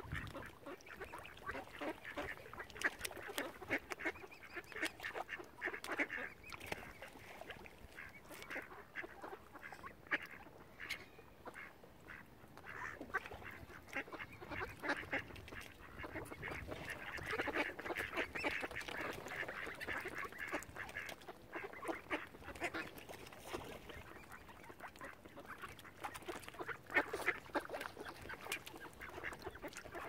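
A crowd of mallard ducks quacking and calling over one another without a break, busiest in the middle and again near the end.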